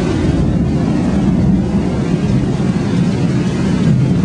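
Torrential rain pouring down, with floodwater rushing past in the street: a loud, steady, deep wash of noise.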